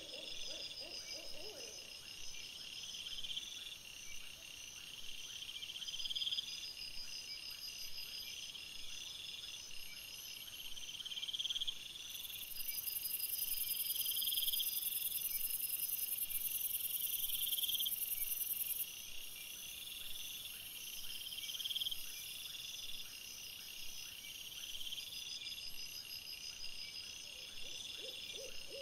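Night insect chorus: crickets calling in short, high-pitched pulse trains that repeat every couple of seconds. A steadier high-pitched hiss comes in about twelve seconds in and lasts about seven seconds, the loudest part.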